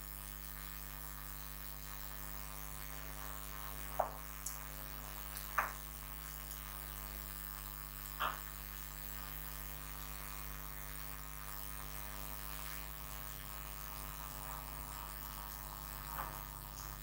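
Steady electrical mains hum, with a few short knocks or clicks scattered through, the clearest about four, five and a half and eight seconds in.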